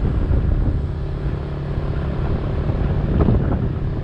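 Motor vehicle engine running steadily while travelling along a road, with a dense low rumble of road and wind noise.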